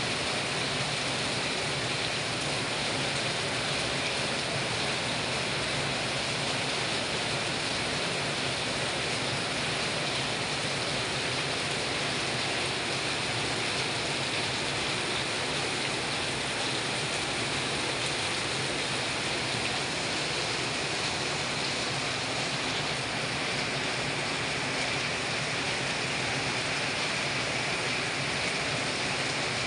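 Heavy rain falling steadily on leaves and a house roof, with water streaming off the roof edge.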